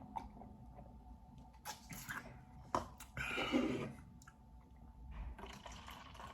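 A person eating clams close to the microphone: wet chewing with a few sharp clicks, and a louder wet, slurping sound a little over three seconds in.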